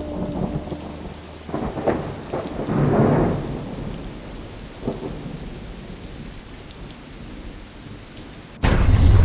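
Rain falling steadily, with a rumble of thunder swelling about three seconds in. Music fades out at the start and cuts in abruptly near the end.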